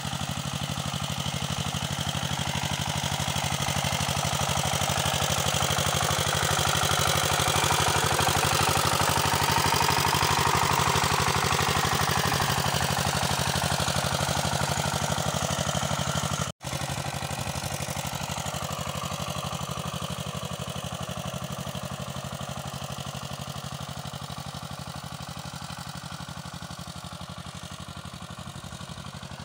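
Walking tractor's engine running steadily as it pulls a plough, growing louder for the first third, then slowly fading as it moves away. A split-second break in the sound about two-thirds of the way through.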